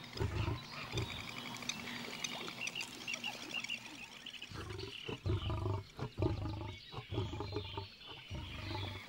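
Lioness growling, deep and rough, in short bursts near the start and again in a run through the second half, with frogs trilling in the background.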